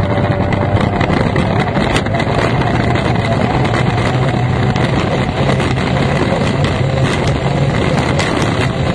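F1 racing powerboat's outboard engine running hard at a steady pitch, heard loud and close from the cockpit, over a constant rush of wind and water noise.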